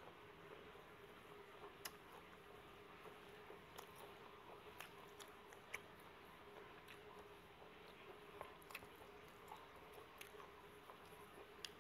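Quiet chewing of a mouthful of beef laab and sticky rice, faint, irregular wet mouth clicks, over a low steady hum.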